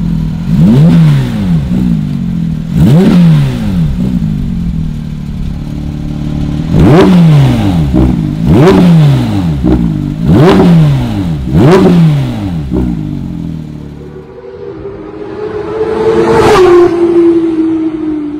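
Porsche 992 GT3's 4.0-litre flat-six with a Fi Exhaust valved catback, revved in place: six sharp blips, each rising quickly and dropping back. The exhaust valves are open for the later blips. Near the end a steadier engine note swells and then slowly falls in pitch.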